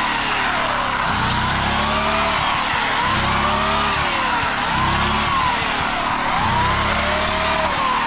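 Small engine of a DR walk-behind string trimmer running under load, its pitch rising and falling over and over about every second and a half as it is worked back and forth through overgrowth.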